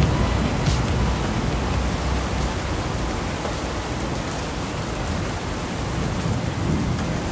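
A steady wash of rain-like noise in a break within a darksynth electronic track, with its low bass fading away over the first few seconds.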